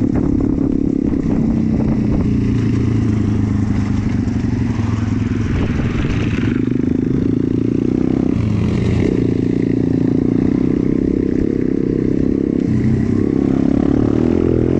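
Pit bike engine running while riding. Its pitch shifts up and down several times with throttle and gear changes.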